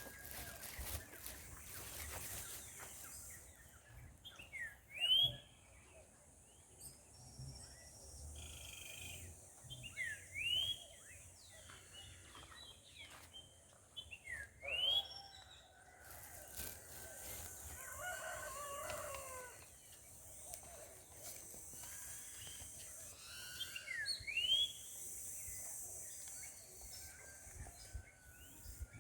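Birds calling outdoors: sharp, rising chirps repeated every few seconds, with a longer falling call about eighteen seconds in, over a steady high hiss.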